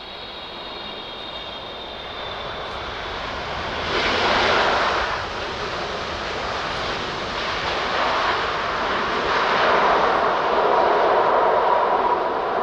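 Boeing 777 freighter's jet engines on touchdown and the landing roll: a broad roar that swells about four seconds in and grows louder again toward the end, with a steady whine coming through near the end.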